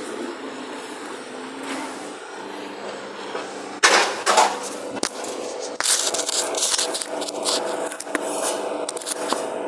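Sharp knocks and clanks of tools on metal: two loud strikes about four seconds in, then a run of irregular lighter knocks for a few seconds, over a steady mechanical hum.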